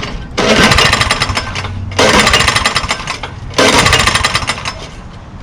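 1985 Honda HR214 mower engine being pull-started on choke, cold after years unused. Three hard pulls on the recoil starter, about a second and a half apart, spin the engine over in a rapid rattle that fades after each pull without the engine catching.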